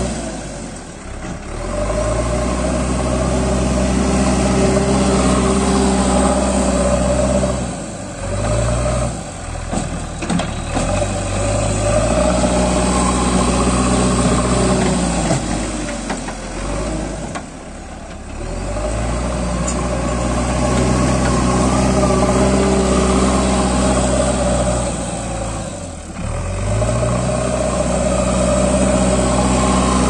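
JCB 3DX backhoe loader's diesel engine running hard. The revs drop and climb back up several times as the machine works: about a second in, around eight and seventeen seconds, and again near the end.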